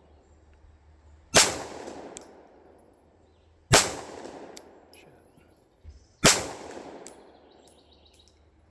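Three pistol shots about two and a half seconds apart, each sharp crack trailing off in a long echo.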